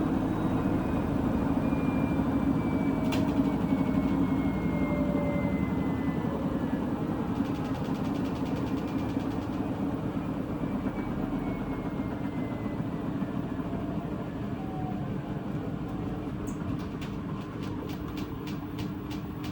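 Washing machine on its spin cycle: a steady humming drone with a faint whine that slowly falls in pitch, growing gradually quieter. A run of light, regular ticks comes in near the end.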